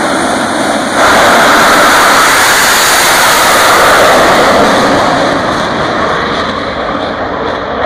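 Jet engines of two drag racing cars, a loud steady rushing noise. It jumps up about a second in as the cars launch, then fades over the last few seconds as they speed away down the track.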